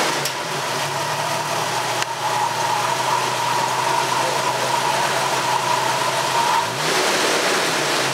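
A 1992 Jeep Wrangler YJ's 4.0-litre inline-six running just after starting on a freshly fitted serpentine belt, idling steadily with a steady high whine over it. Near the end the whine stops and the engine pitch rises briefly.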